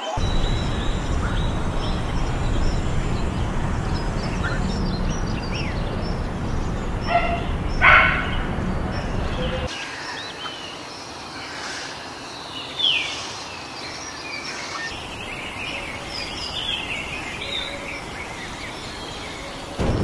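Outdoor nature ambience with birds chirping and calling over a steady background hiss. A louder, short call stands out about eight seconds in. The background turns quieter about ten seconds in, with birds still calling, among them a short rising chirp a little later.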